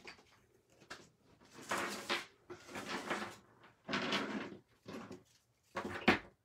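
Craft supplies being handled on a tabletop: four short scraping, rustling sounds about a second apart, with a few light clicks between them.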